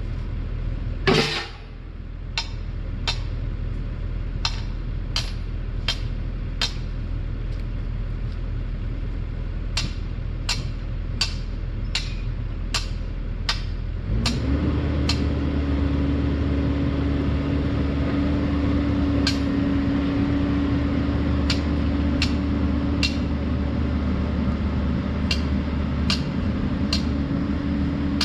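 Steel fence T-posts being driven with a hand post driver: a steady series of sharp metal strikes, about one and a half a second. An engine runs underneath and gets louder about halfway through.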